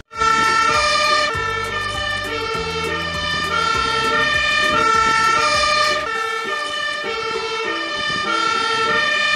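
Fire engine's two-tone siren alternating between a high and a low note, about one high-low cycle a second. A low drone runs underneath and stops about six seconds in.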